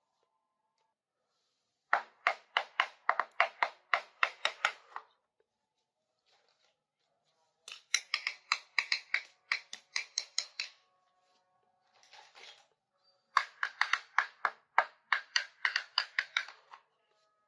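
Small plastic toy-kitchen pieces clicking sharply. The clicks come in three runs of about three seconds each, roughly five clicks a second, with pauses between the runs.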